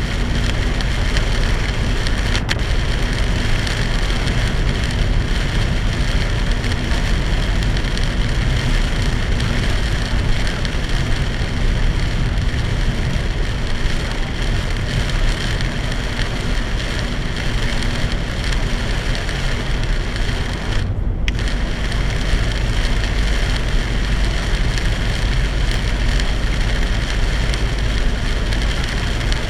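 Heavy rain drumming on a moving car, with wet tyre and road noise, heard from inside the cabin through a dashboard camera. It is a loud, steady hiss, and the high part of it drops out for a moment about two-thirds of the way through.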